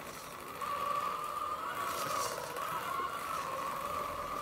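Electric motor and gearbox of a 1/10-scale D1RC D110 Defender RC crawler whining under load as it climbs a steep ramp, one slightly wavering whine that gets louder about half a second in.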